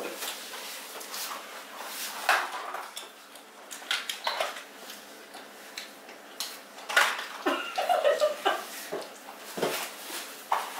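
Scattered small clatters and rustles of cardboard nugget boxes and plastic sauce cups being handled on a table while people eat, with a brief muffled voice-like sound about seven to eight seconds in.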